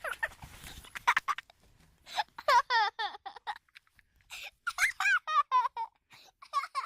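Young children laughing and giggling in quick, high-pitched fits, several in a row with short breaks between them.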